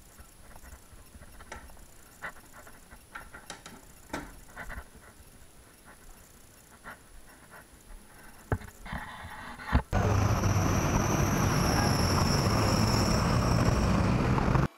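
Scattered light clicks and knocks. About ten seconds in, a sudden loud, steady rush of wind and street noise with a thin high whine sets in, then cuts off abruptly.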